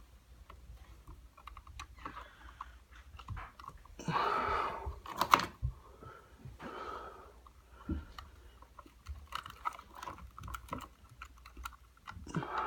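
Handling noises: scattered small clicks and taps, a short rustle about four seconds in, then a sharp snap just after five seconds.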